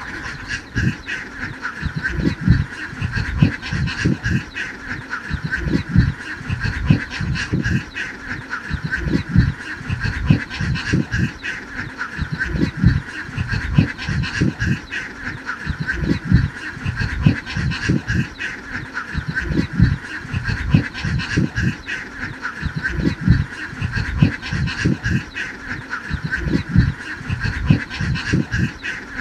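A large flock of domestic ducks quacking, many calls overlapping into a continuous chorus, with frequent low thumps underneath.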